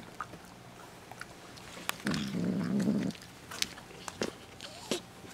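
A pet's short low growl, about a second long, starting about two seconds in, with a few faint clicks around it.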